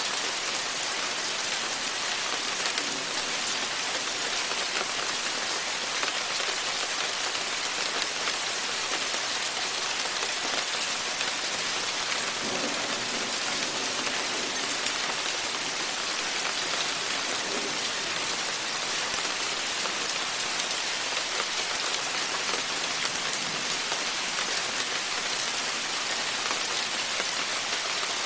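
Steady rain falling, an even hiss of drops pattering on the porch and wet ground.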